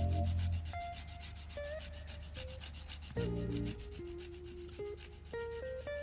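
Background music cue: fast, steady ticking percussion about eight strokes a second over a deep bass, with a melody of held notes that step and slide. It starts suddenly, and the bass comes in again about three seconds in.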